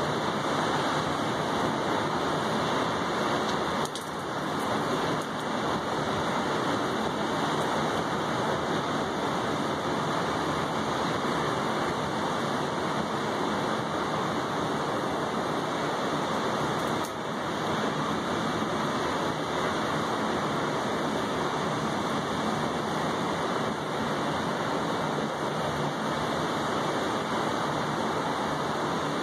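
Steady rain falling on a wet balcony table and railing, a dense even hiss, with the level dipping briefly about 4 seconds in and again about 17 seconds in.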